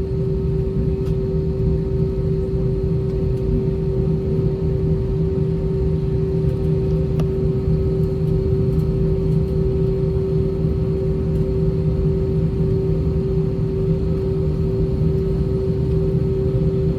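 Cabin sound of an Airbus A320-232 with its IAE V2500 engines running at taxi power: a steady low drone with a constant hum tone above it.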